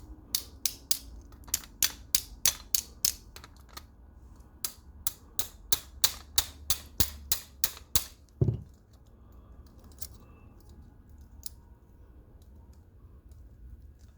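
A quick run of sharp clicks, about three a second, as the metal parts of a multitool are worked back into place during reassembly, ending in one dull thump a little past halfway.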